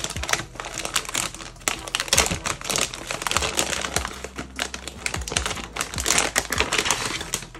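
Metallized anti-static plastic bag crinkling and crackling as hands peel it off a graphics card: a dense, continuous run of crackles that stops at the very end.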